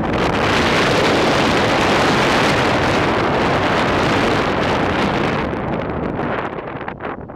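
Wind rushing over the microphone from a moving car, mixed with road noise; it eases off near the end.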